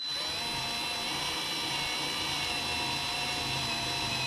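Cordless variable-speed screwdriver with a hex bit running steadily, driving a screw into plastic. It makes an even motor whine that dips slightly in pitch near the end.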